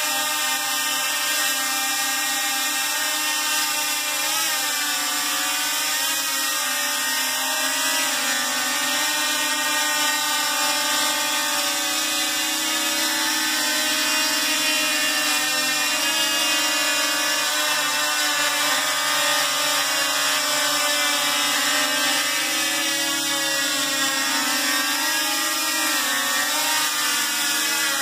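DJI Mavic Pro quadcopter with propeller cages fitted, hovering: a loud whine from its four motors and propellers, many tones held steady with slight wavering in pitch as it holds position. The small caged props make the motors spin too fast and work very hard, and the owner says it doesn't sound right.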